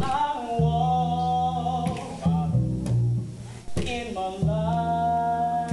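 Live jazz-soul performance: a voice singing two long held phrases of about two seconds each over plucked upright double bass notes.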